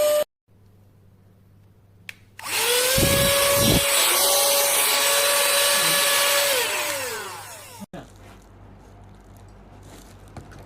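Small high-speed motor of a REDBUZZ mini cordless car vacuum/blower with a steady high whine. It is switched off just after the start, then switched on again about two and a half seconds in. It spins up quickly to a steady whine for about four seconds, then winds down with a falling pitch.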